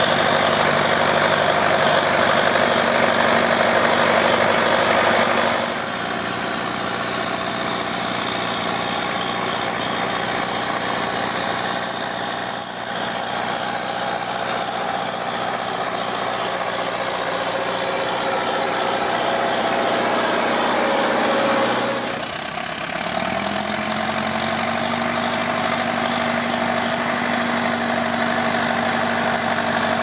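Leyland 482 tractor's four-cylinder diesel engine running steadily while pulling a plough. The note changes about six seconds in, and near the end it dips briefly and then settles at a higher pitch.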